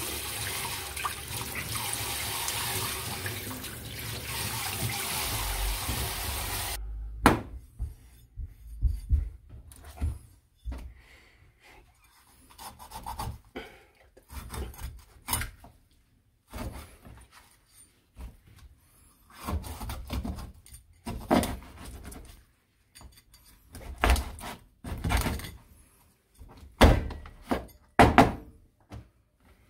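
Tap water running in a steady spray over a fish in a steel sink, cutting off suddenly about seven seconds in. Then a kitchen knife scraping over the fish's scales and cutting it on a plastic cutting board, in short uneven strokes with pauses between.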